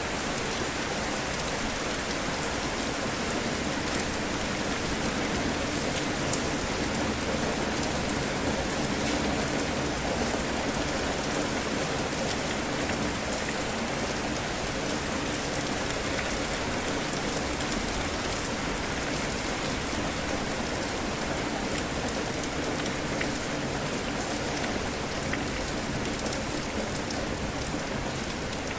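Steady rain falling and pattering on surfaces, with scattered individual drops.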